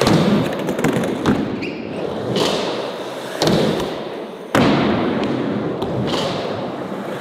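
Skateboard wheels rolling on smooth flat ground, broken by several sudden sharp thuds of the board striking the ground.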